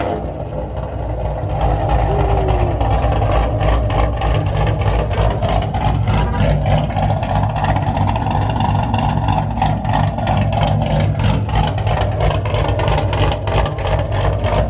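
Chevy SS's 6.2-litre LS3 V8, fitted with a stage 3 camshaft, idling loudly just after start-up. It has an uneven, lumpy chop from the big cam.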